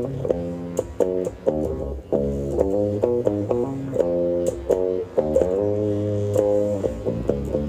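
Background music: a plucked guitar melody over bass, with light percussive ticks.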